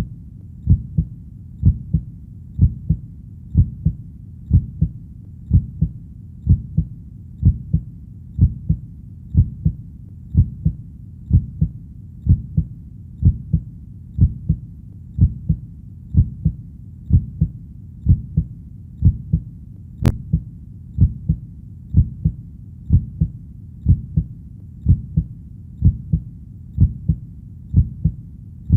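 Heartbeat: a steady rhythm of deep double thumps (lub-dub), about one beat a second. A faint click about twenty seconds in.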